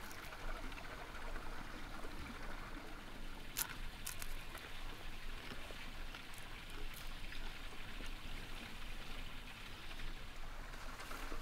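Steady outdoor background hiss that sounds like running water, with a few short clicks about four seconds in.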